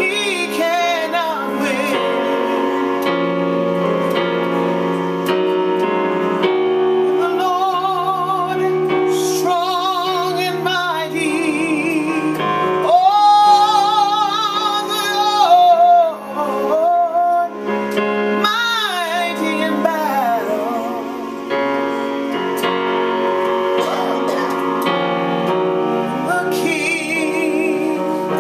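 A woman singing a gospel worship song over keyboard accompaniment, holding long notes with a wide vibrato; the loudest, highest held notes come about halfway through.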